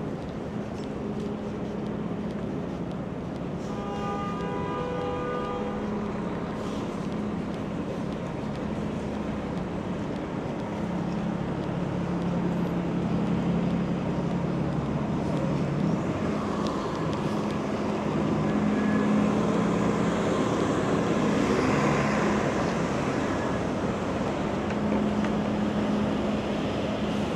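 City street traffic ambience: a steady hum of passing vehicles, growing a little louder in the second half, with a brief pitched tone about four seconds in.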